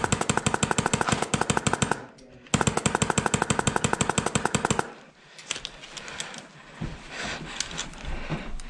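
HPA airsoft rifle, a VFC 416C with a Redline N7 engine, firing full-auto close to the microphone: one long rapid burst, a half-second break, then a second burst of about two and a half seconds. Quieter scattered clicks and rustling follow.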